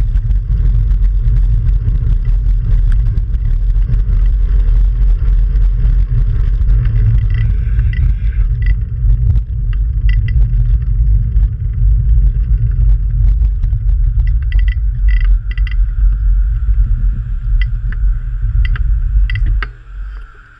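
Wind buffeting and road rumble on a bike-mounted GoPro microphone as a fixed-gear bicycle is ridden fast through city traffic: a heavy, steady low rumble with a few short high squeaks in the middle. It fades away near the end.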